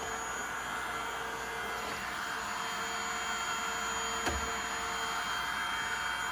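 A NEQUARE cordless handheld vacuum runs steadily with its dust brush attachment, a steady motor whine over the hiss of rushing air. There is one brief knock about four seconds in.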